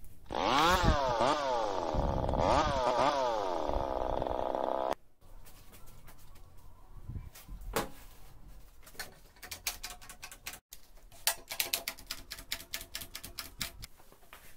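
A homemade chain-bar saw's motor revved in short blips for about five seconds, its pitch rising and falling with each blip, then stopping abruptly. After that come knocks of a wooden beam on a workbench and a quick run of rapid clicks as quick-release bar clamps are ratcheted tight.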